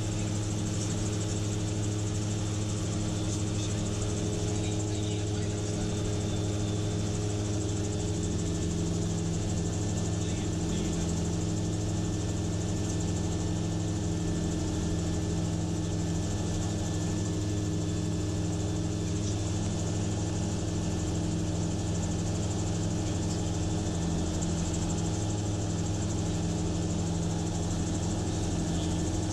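Gyrocopter's engine and propeller droning steadily in cruising flight, heard from inside the cockpit, with an even hiss above the drone and no change in pitch.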